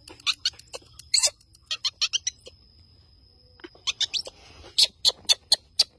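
Baby monkey giving a string of short, sharp, high-pitched squeaks in irregular clusters, with a brief rustle a little past the middle.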